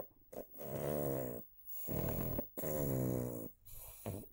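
Snoring: three drawn-out, buzzing snores, each lasting up to about a second, with short breaks between them.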